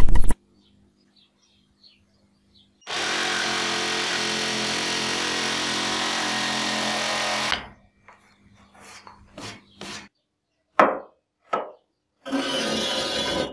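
Electric jigsaw sawing through wood for about four and a half seconds, then stopping. A few short knocks and clicks follow, and the saw runs again briefly near the end.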